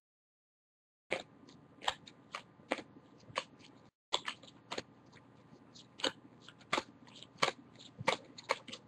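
Baseball trading cards being handled and sorted: irregular sharp clicks and snaps as cards are slid off the stack and set down, about one or two a second. The sound cuts out completely for about the first second and again briefly near the middle.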